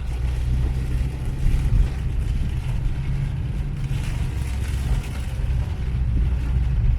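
Steady low rumble of a car's engine and tyres, heard from inside the cabin while driving on a wet road.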